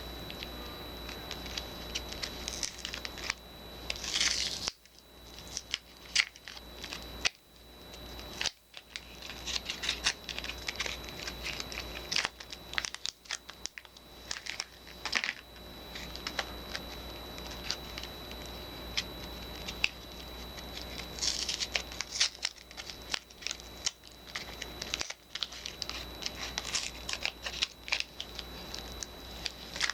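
Soap bars being unwrapped by hand: packaging crinkling and tearing, with irregular rustles and sharp little clicks and taps.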